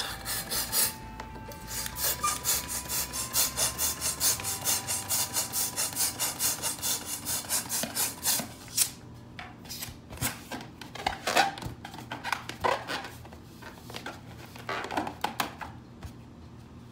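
Rapid, rhythmic rubbing strokes, several a second for about eight seconds, then irregular scattered scrapes, over faint background music.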